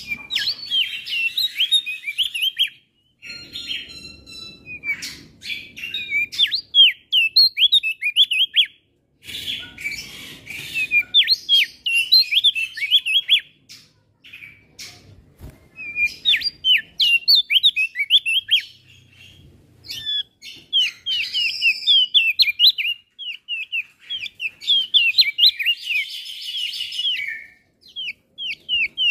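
A male opior jambul in full song: fast runs of high, sharp chirps and twittering phrases in bursts of a few seconds, broken by short pauses.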